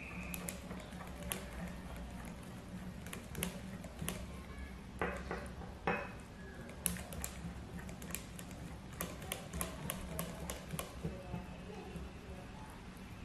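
Metal wire whisk beating pancake batter in a glass bowl: irregular quick clicks and taps of the wires against the glass, with a couple of longer scrapes about midway and the tapping busiest in the second half. A low steady hum runs underneath.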